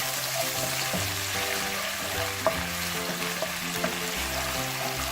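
Ginger and garlic paste sizzling in hot oil with whole spices in a pan, a steady frying hiss with a few light clicks, over soft background music.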